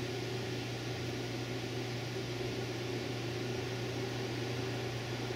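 Room tone: a steady hiss with a low hum underneath, unchanging throughout.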